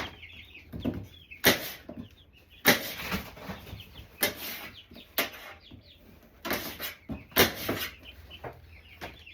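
Knife chopping fruit on a cutting board: about eight separate, irregular chops. Chickens cluck faintly in the background.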